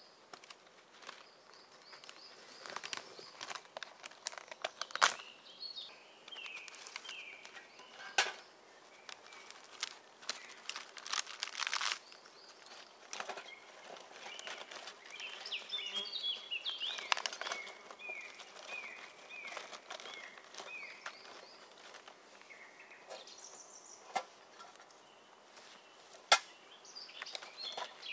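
Small forest birds singing in quick runs of short descending chirps, over scattered crackles and clicks and a few sharp cracks.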